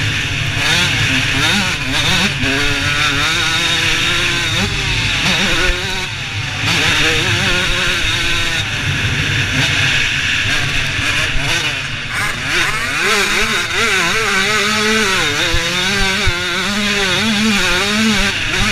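Supermini motocross bike engine revving up and falling off again and again as the rider accelerates and shifts through the gears at race pace, heard from the rider's helmet.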